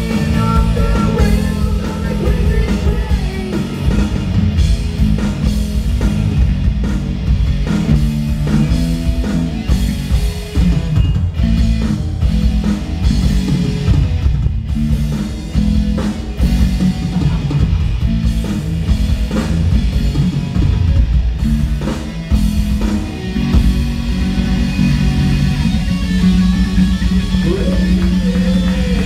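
Live rock band playing loudly: electric guitar over electric bass and a Roland electronic drum kit, with a steady driving beat.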